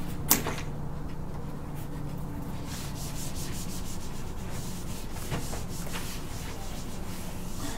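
Whiteboard being wiped and drawn on: short scratchy rubbing strokes of an eraser and a dry-erase marker on the board, with a sharp tap about a third of a second in, over a steady low hum.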